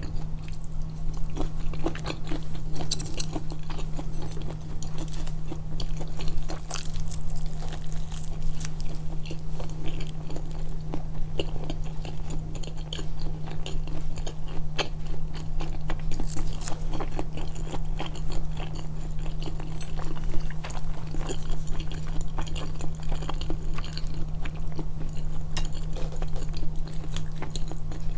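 Close-miked chewing, biting and wet mouth sounds of a person eating, a dense, irregular run of small clicks and smacks over a steady low hum.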